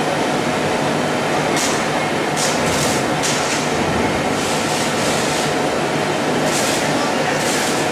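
Granule filling and packaging machine running: a steady mechanical hum and clatter, with short hisses coming several times.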